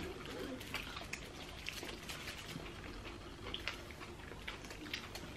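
Quiet eating sounds: scattered small clicks and smacks from people chewing and picking up food with their fingers.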